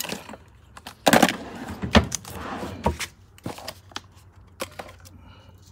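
Hands rummaging through a desk drawer: rustling of paper and small objects clicking and knocking against each other, with a louder rustle about a second in and a sharp knock about two seconds in.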